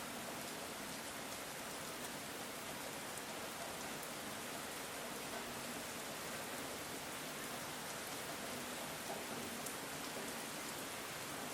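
Steady rain falling on the ground: an even hiss with scattered drop patters.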